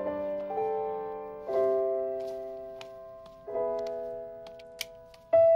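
Slow, soft piano background music: chords struck every second or two, each left ringing and fading before the next.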